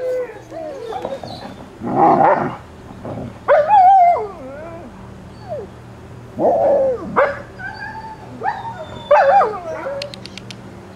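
Young Alaskan Malamute puppies whining and yelping: a string of short calls, each bending up and down in pitch, with pauses between them.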